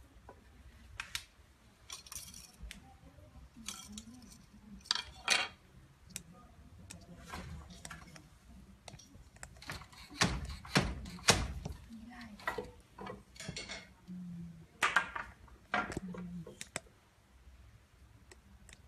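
Wooden handloom weaving silk brocade: the beater knocking the weft into place and the wooden loom parts clacking, in irregular strikes, with the heaviest thuds in the middle.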